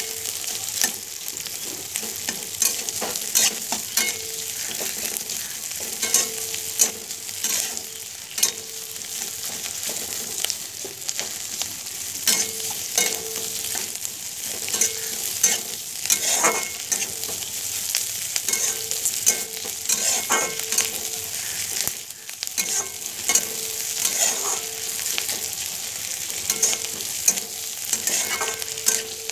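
Sliced onions and green chillies sizzling as they stir-fry in a metal kadhai, with a metal spatula scraping and knocking against the pan in frequent sharp clicks as they are tossed.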